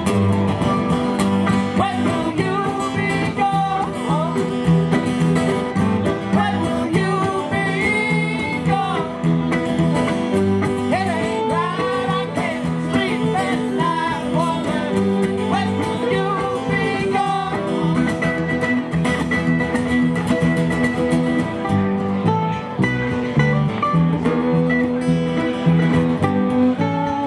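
Live acoustic string band playing a bluegrass-style song: strummed acoustic guitar, mandolin, fiddle and upright bass over a drum kit. A voice sings over the first half or so, and the instruments carry on after it.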